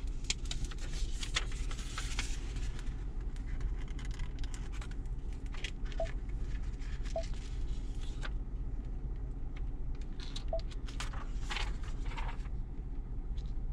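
Plastic backing film being peeled off a screen protector and the film being handled and laid onto a car's touchscreen: light crinkling, scrapes and small taps. Under it runs the steady low hum of the idling engine and cabin heater, and a few faint short pips sound now and then.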